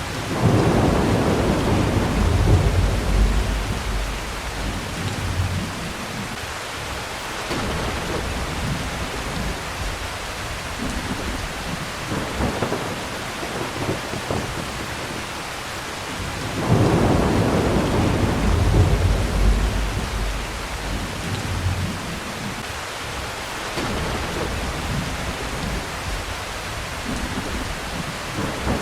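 Steady heavy rain with two long rolls of thunder. One thunder roll starts right at the beginning and the other about seventeen seconds in, each rumbling for about five seconds.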